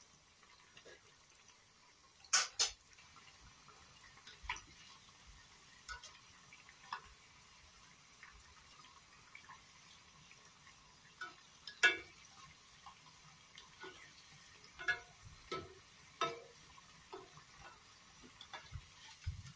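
Egg-and-potato balls deep-frying in a karahi of hot oil with a faint steady sizzle. A slotted spatula knocks and scrapes against the pan a dozen or so times as the balls are turned and lifted. The loudest knocks come about two and a half seconds in and near twelve seconds.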